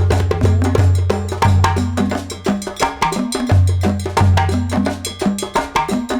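Background music with a fast percussion beat of wood-block and cowbell-like strikes over a repeating bass line.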